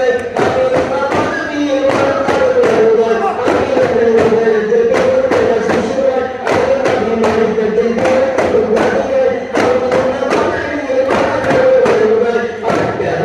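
Daf muttu: a group of men chanting a devotional song together over daf frame drums beaten in a steady rhythm.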